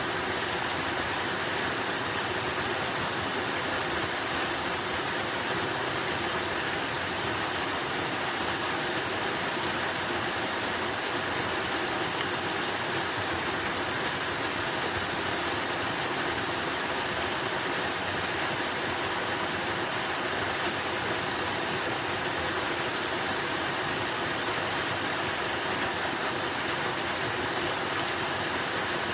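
Running water flowing steadily, an even unbroken rush with no change.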